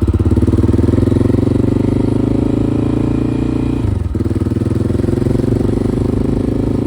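Carbureted motorcycle engine running with steady, rapid firing pulses. There is a brief dip in the sound about four seconds in.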